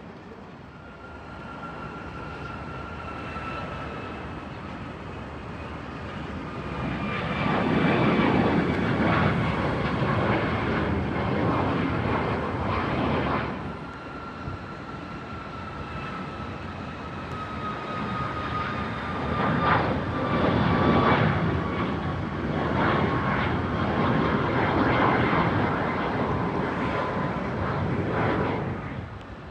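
Jet airliner engines passing close by: a whine that slides slowly down in pitch over a loud rush of engine noise. The first pass cuts off abruptly about halfway through, and a second aircraft passes the same way.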